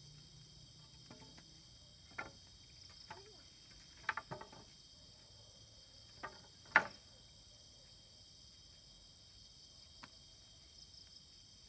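Crickets and other night insects chirring steadily in a high band, with about seven sharp knocks of wood on wood scattered through, the loudest about seven seconds in.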